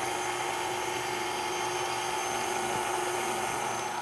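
KitchenAid stand mixer's motor running at a steady speed, its flat beater mixing flour into a yeast, egg and butter dough; an even motor hum with a steady whine.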